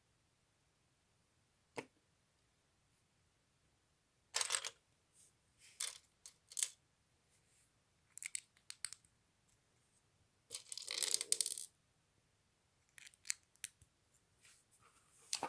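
Small plastic LEGO pieces clicking and clattering as they are handled and pressed together, in short irregular bursts with a longer clatter about eleven seconds in.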